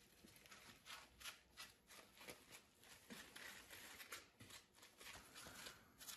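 Faint, irregular clicking and rustling, like something small being handled, a few clicks a second.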